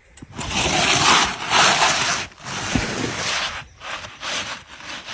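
Asphalt roof shingle scraping and rubbing against the neighbouring shingles as a replacement shingle is worked into place: two long scrapes, then a few short ones near the end.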